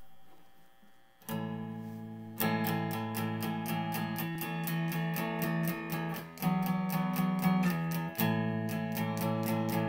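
Instrumental song intro on strummed guitar: a chord rings and fades, a new chord comes in about a second in, then steady rhythmic strumming starts about two and a half seconds in, roughly four strokes a second.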